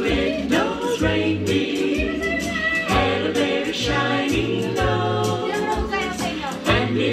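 A song playing, with several voices singing over a steady bass line and beat.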